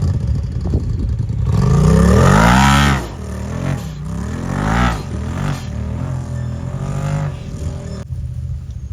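Side-by-side UTV engine revving hard, climbing in pitch from about a second and a half in and dropping off near three seconds, with a second shorter rev around five seconds, then running at a steady throttle.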